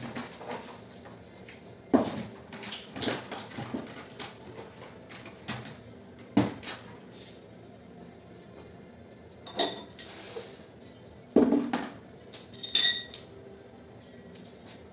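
Metal pieces knocking and clinking as they are handled, in scattered hits with quiet gaps, ending in a ringing metallic clink near the end.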